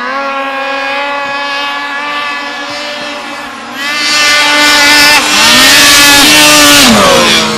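Snowmobile engine running at high revs as it climbs the hill, getting much louder as it comes close about four seconds in and staying loud for about three seconds. Near the end its pitch drops as it goes by.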